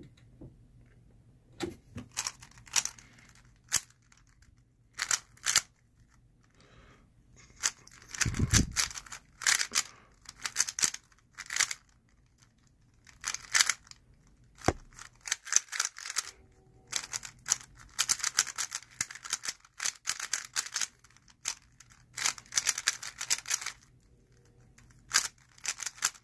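Plastic 3x3 speedcube (Moyu Weilong GTS v2) being turned fast in a speed solve: quick runs of clicking and clattering layer turns, broken by short pauses while the solver looks for the next pieces.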